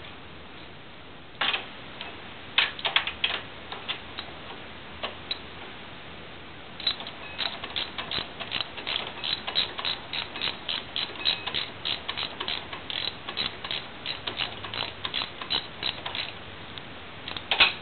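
Socket ratchet wrench clicking as a bolt on the ATV spindle's ball joint is tightened: a few scattered clicks at first, then a steady run of about two to three clicks a second from about seven seconds in.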